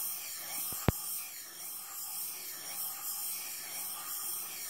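Steel plane iron from a block plane being rubbed back and forth on wet abrasive sandpaper, a steady hissing scrape that rises and falls with the strokes as nicks are ground out of the edge. A single sharp click comes about a second in.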